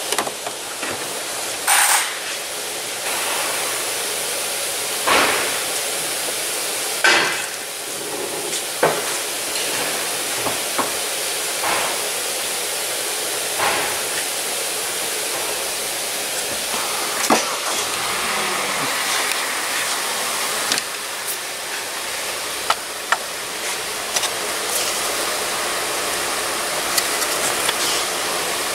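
Scattered light clicks and knocks as wiring connectors and tools are handled under a car, over a steady hiss.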